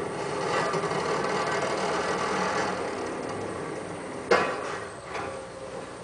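Excavator-mounted NPK SV250 demolition attachment grinding and crunching through broken concrete rubble, over the machine's steady engine. A sharp crack of concrete or steel about four seconds in is the loudest moment, with a smaller knock just after.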